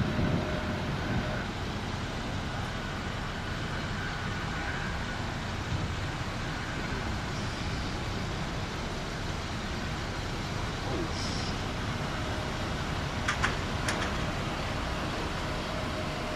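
Jet engines of a Delta Airbus A320-family airliner at takeoff power during its takeoff roll, heard from a distance as a steady, even noise. Two short clicks come about 13 seconds in.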